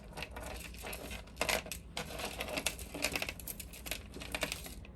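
Costume jewelry clinking and rattling as the pieces are handled and sorted: a dense, irregular run of small clicks and jingles.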